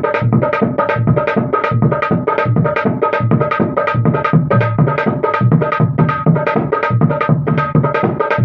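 Dholak, a rope-tensioned two-headed barrel drum, played by hand in a fast, even rhythm. Deep strokes on the bass head sound under ringing higher strokes on the treble head.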